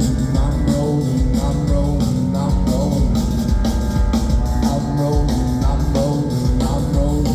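A rock band playing live, with no vocals: a drum kit keeps a steady beat under a repeating bass and melodic figure.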